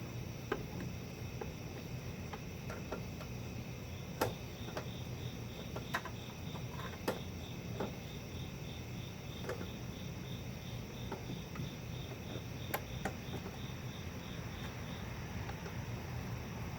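Scattered metallic clicks and knocks of hand tools working on a fuel line fitting. Through the middle there is a high, evenly pulsed chirping like an insect's, over a steady low hum.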